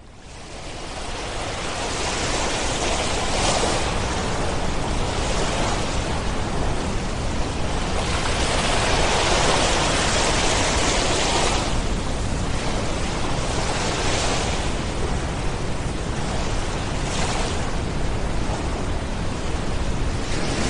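Ocean surf: powerful waves breaking on a beach, a dense rushing noise that swells and eases every few seconds. It fades in over the first two seconds.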